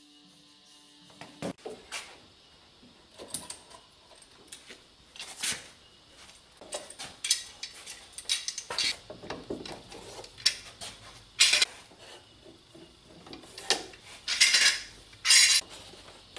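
Steel bar clamps being loosened, pulled off a glued wooden workpiece and set down: irregular metallic clanks, clicks and rattles, the loudest few near the end.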